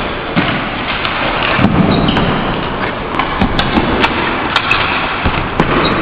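Floor hockey play on a hard gym floor: scattered clacks of plastic sticks and ball striking the floor, over a steady loud noisy wash.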